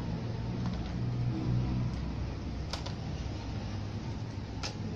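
A steady low rumble, with two sharp clicks of electronic parts being handled, one a little before three seconds in and one near the end.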